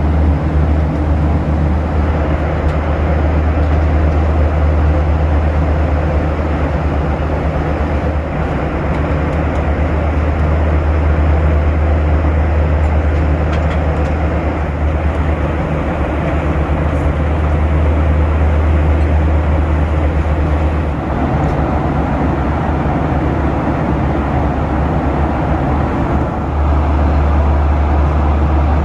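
Steady cabin noise of a Boeing 737-800 in cruise: rushing airflow over a strong, even low drone. The low drone drops away for a few seconds about two-thirds of the way in, then returns.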